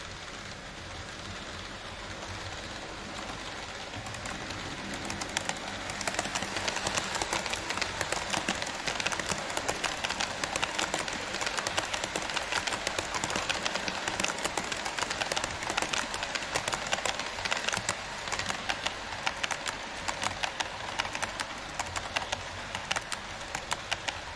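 HO scale model train running on the track: a rushing wheel-and-motor noise that grows louder over the first few seconds, then rapid clicking of the wheels over the rail joints from about six seconds in.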